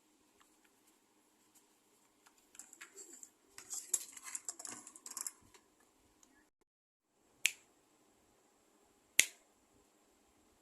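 Plastic bottle caps and small toy-car parts being handled on a work surface: a flurry of light clicks and scrapes, then two sharp clicks about two seconds apart.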